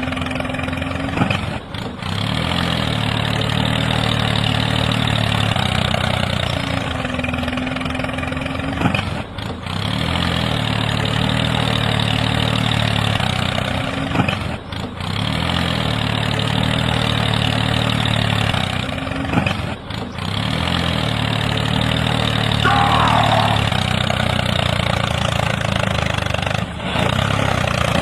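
Tractor engine starting and running at idle in a repeating cycle about every five seconds, with a short break between cycles.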